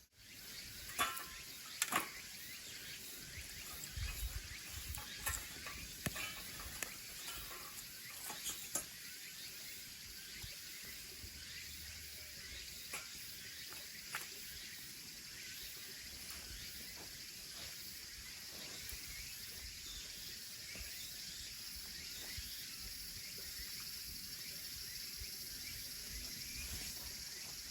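Wood fire burning in a small camping wood stove, crackling with sharp pops that come thickest in the first ten seconds and then thin out, over a steady high hiss.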